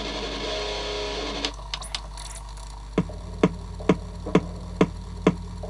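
Sony mini CD player playing a short stretch of music that cuts off about one and a half seconds in. From about three seconds in there is an even clicking, about two clicks a second.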